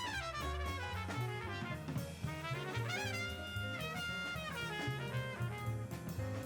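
Background music: upbeat jazzy tune with brass horns over a drum kit beat.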